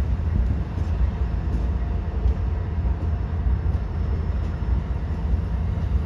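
Amtrak Southwest Chief passenger train moving out: a steady low rumble with faint, regular clicks about every three-quarters of a second.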